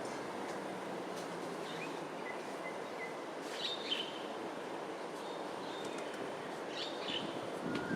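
Songbirds giving short, sharp chirps a few times, with a few faint short whistles, over a steady low background rumble of ambient noise.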